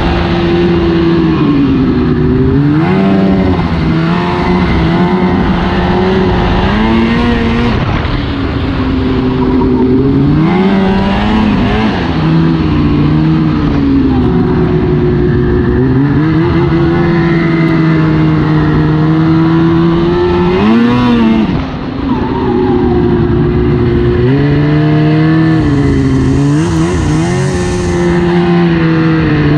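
2002 Arctic Cat ZR 800 snowmobile's two-stroke twin engine running under way. Its pitch rises and falls several times as the throttle is worked, with a short dip off the throttle about 21 seconds in before it picks up again.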